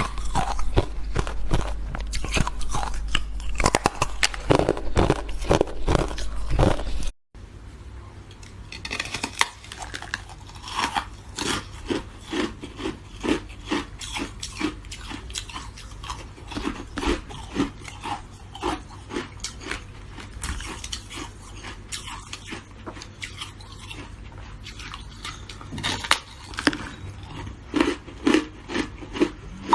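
Close-up crunching and chewing of shaved ice, a dense run of irregular crackles and crunches. There is a brief break about seven seconds in, after which the crunching is quieter.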